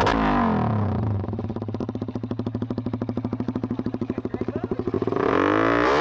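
Suzuki Raider 150 motorcycle engine through an aftermarket bulate pipe exhaust: a throttle blip falls back to a fast, steady idle beat, then it is revved up again about five seconds in.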